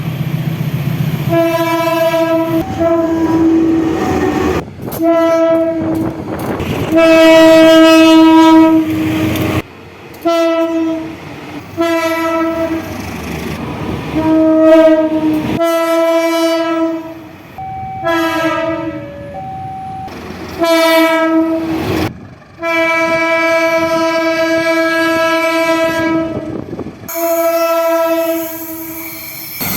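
Sumatran locomotive air horns of the "baung" type sounding again and again: short toots and long held blasts of one steady pitch, with a few lower notes about two thirds of the way through. The train runs underneath, and the sound breaks off abruptly between one clip and the next.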